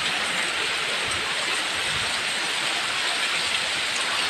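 Heavy tropical rain pouring down, a steady dense hiss with no let-up.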